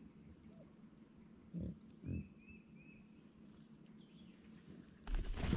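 Two short low grunts about half a second apart, like a pig's, over a steady faint high insect hum, with three soft quick chirps just after. Near the end, a loud burst of rustling and knocking.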